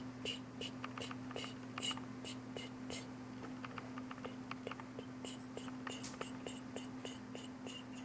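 A small paintbrush dabbing paint onto the painting in quick, short taps, about three a second, with soft brushing between them, over a low steady hum.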